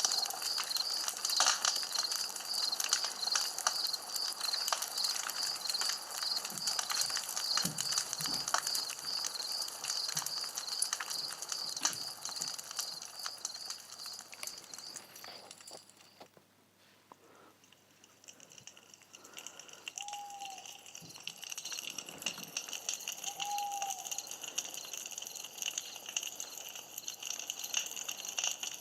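Campfire crackling and popping, with sharp pops scattered through, loudest in the first half and dying down briefly past the middle. A high, evenly pulsing chirp runs behind it for about the first half, and two short falling notes sound near the end.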